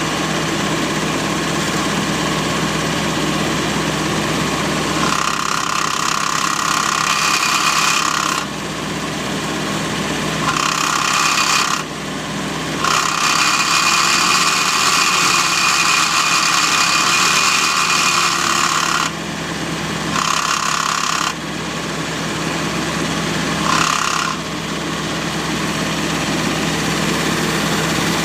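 Ford GPW jeep's four-cylinder flathead engine idling while the clutch pedal is pressed and released about six times. Each time the pedal goes down, a loud, high-pitched rasping noise with a whine in it comes in and then stops sharply, lasting from half a second to about six seconds. It comes from the clutch, which still works, with a new disc and throw-out bearing fitted.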